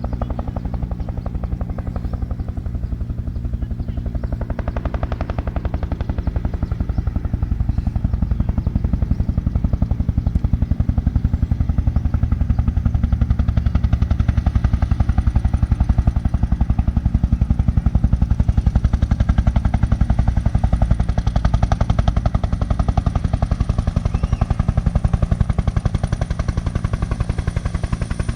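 Helicopter close by, its rotor chopping in a fast, even pulse over a low engine drone. The sound swells louder toward the middle, and a thin high turbine whine comes in about halfway.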